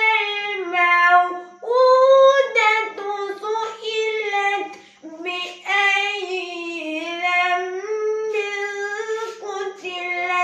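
A boy chanting a melodic recitation solo, his voice held in long phrases that glide up and down in pitch, with brief breaks between phrases about a second and a half in and about five seconds in.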